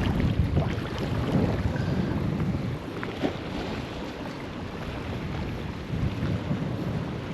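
Wind buffeting the microphone, with waves washing in the background.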